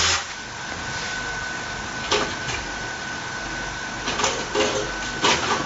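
A steady whirring hiss with a constant high whine, with a few light knocks and rattles at about two, four and five seconds in as hands work on the gas water heater's brass valve body.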